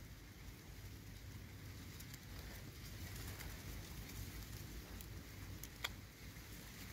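Faint outdoor background: a low, steady rumble with scattered soft ticks and one sharp click about six seconds in.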